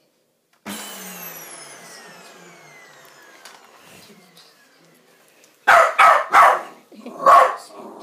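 A vacuum cleaner's motor whines down in pitch and fades, starting suddenly about a second in. Then a dog barks at the vacuum cleaner: about four loud barks in quick succession over the last two and a half seconds.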